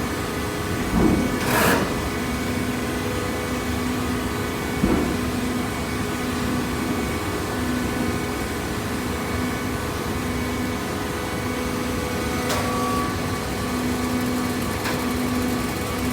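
Hydraulic baler running with a steady machine hum and a low tone that cuts in and out every second or so. A few sharp knocks come through, most clearly about a second and a half in and near twelve and a half seconds.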